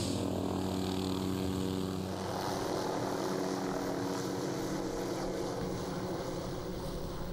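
Helicopter in flight: a steady drone of rotor and engine at an even pitch.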